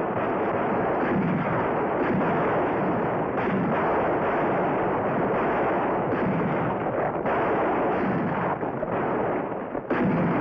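Gunfire in a shootout: repeated rifle and handgun shots over a constant dense din.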